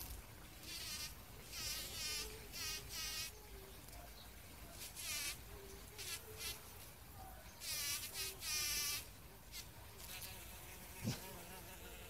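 Bumblebee buzzing in short, repeated bursts while it forages in a rose flower, the pitch of each burst quickly sliding.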